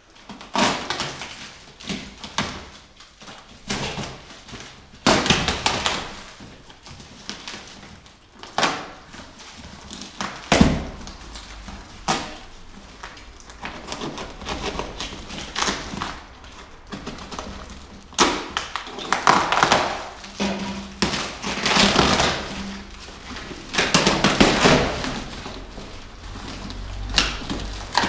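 Cardboard and bubble-wrap packaging being cut open with a knife and pulled away by hand: irregular spells of rustling, crinkling and tearing, with a dull thud about ten seconds in.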